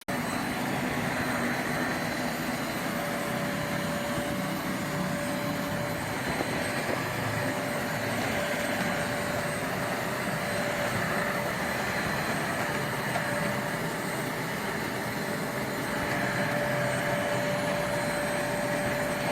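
Deerma DX115C handheld vacuum cleaner running steadily at full suction: an even rushing of air over the motor, with a faint steady whine.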